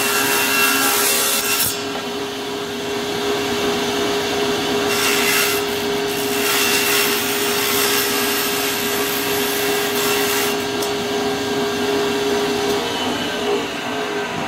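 Table saw running with a steady hum while ripping thin strips of caixeta wood; the cut comes through as a louder high hiss several times as the board is pushed through, and the motor hum stops about a second before the end.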